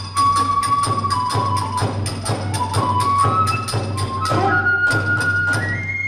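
Kagura hayashi: a Japanese bamboo transverse flute (fue) plays a high melody that climbs in steps near the end. Under it, drum and small hand cymbals beat a steady rhythm of about three to four strokes a second.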